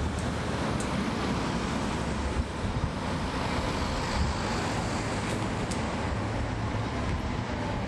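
The Caterpillar C13 ACERT diesel engine of a NABI 416.15 transit bus running steadily under way, heard from inside the bus along with road and wind noise.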